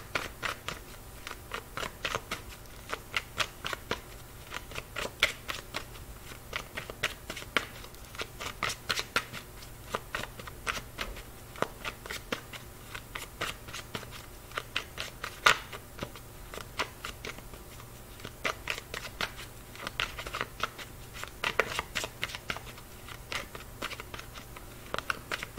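A deck of tarot cards being shuffled by hand, cards sliding and slapping from hand to hand in a continuous run of quick, irregular clicks, with one sharper snap about halfway through.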